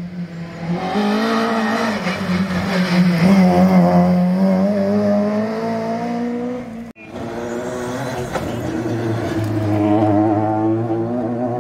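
Rally car engines running hard on a stage: one car, then, after an abrupt cut about seven seconds in, a second, lower-pitched engine whose note climbs near the end.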